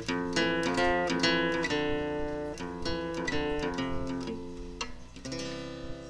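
Background music: plucked acoustic guitar notes in a quick run, slowly fading out.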